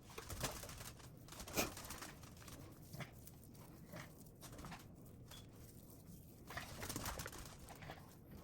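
Faint, scattered soft taps, squelches and rustles of cooked rotisserie chicken being pulled apart and shredded by hand into a bowl, with a longer stretch of handling near the end.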